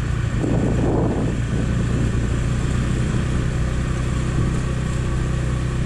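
Motorbike engine running steadily at an even cruising pace, a continuous low hum with road noise.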